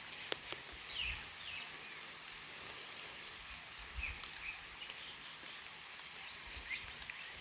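Birds give short, high chirps every second or two over a steady outdoor hiss, with a few soft low thumps.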